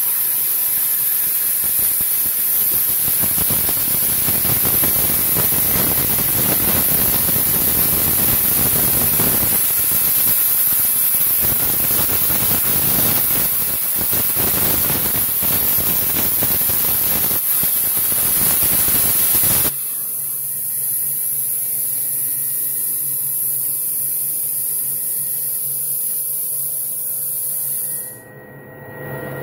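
CNC plasma cutting torch cutting 2 mm hot-rolled steel plate: a loud, steady hiss from the arc and its air, with one short break. About two-thirds of the way through the arc cuts off suddenly, leaving a quieter steady hum with faint whining tones that drops lower near the end.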